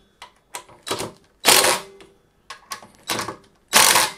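Cordless DeWalt impact driver hammering bolts tight in short bursts, the two loudest about half a second long, with shorter rattles between them. The bolts are being driven down hard against crush washers.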